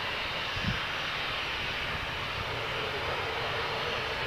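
Jet airliner's engines running steadily as it rolls along the runway, heard from a distance, with a faint steady whine. A brief low thump comes about a second in.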